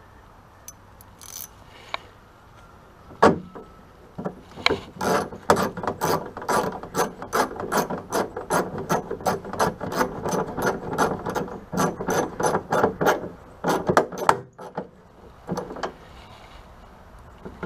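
A knock about three seconds in, then a hand ratchet clicking steadily, about three clicks a second, for some ten seconds before it stops.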